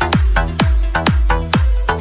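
Background hip-hop music with a heavy bass drum beating about twice a second, each hit sweeping down in pitch, over a sustained bass line; no vocals.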